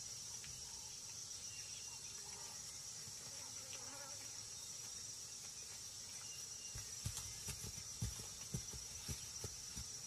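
Faint, steady high-pitched chirring of insects in the background. In the last few seconds several soft, low thumps sound over it.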